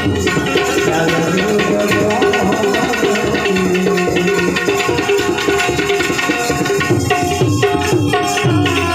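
Instrumental interlude of a Gujarati bhajan: tabla strokes under a harmonium playing a melody in held notes.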